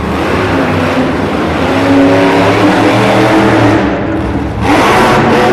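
Monster truck's supercharged V8 engine revving as the truck drives across dirt. Its pitch wavers, then the engine surges sharply with rising pitch about four and a half seconds in.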